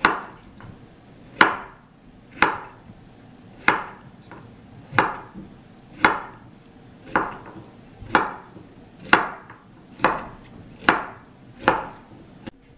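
Chinese cleaver cutting a peeled celtuce stem into chunks on a wooden cutting board: about a dozen crisp chops, roughly one a second.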